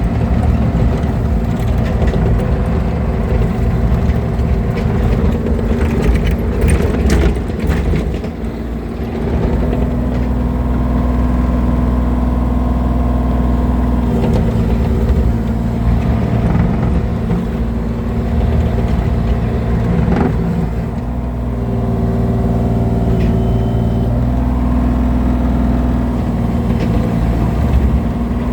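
Diesel engine of a piece of heavy equipment running under varying load, its pitch stepping up and down, with a burst of clattering about six to eight seconds in.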